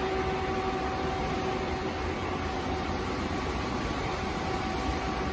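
Steady mechanical hum with a faint constant tone, the even background drone of a workshop hall.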